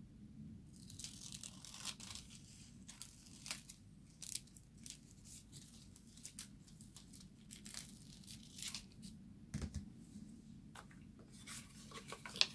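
Thin gold hot-stamping foil crinkling and rustling as it is cut from the roll with scissors and handled, a steady scatter of small sharp crackles.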